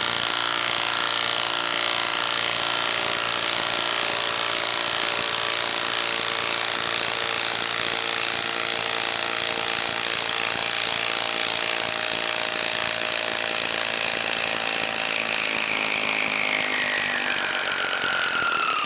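Milwaukee M18 Fuel Stubby 1/2-inch cordless impact wrench hammering without a break as it backs a long lag screw out of a wooden round. Near the end a whine falls in pitch, and the wrench stops as the screw comes free.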